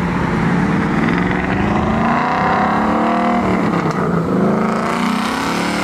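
Ford Mustang Boss 302's 5.0-litre V8 accelerating past, its note climbing, dropping with an upshift about three and a half seconds in, then climbing again.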